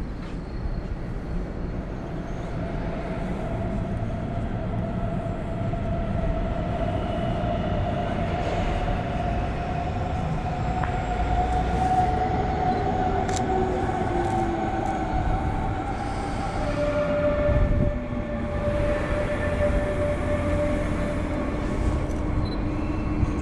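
Hamburg S-Bahn electric train pulling into the platform, its motors whining and one tone falling in pitch as it slows, over a low rumble. In the latter part, steady humming tones as it stands.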